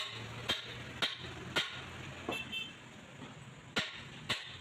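Heavy hammer blows on steel, driving the centre pin into a Mahindra 575 DI tractor's front axle. Four strikes come about half a second apart, then a pause, then two more near the end, each with a short metallic ring.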